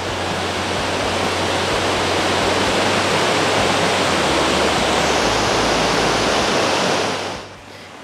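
Waterfall pouring over a concrete weir into a pool: a steady rush of water with a strong flow. It drops away about seven seconds in.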